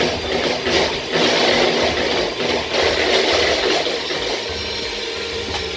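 Runny cheesecake batter being mixed in a bowl: loud, uneven scraping surges.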